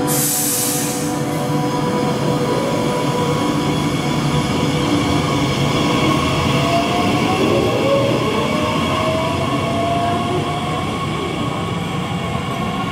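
Two electric multiple-unit trains pulling out of the station, the nearer one a Bombardier Talent 2 S-Bahn unit. Their drive whine rises in pitch as they speed up, over steady wheel-on-rail rumble, with a short hiss at the very start.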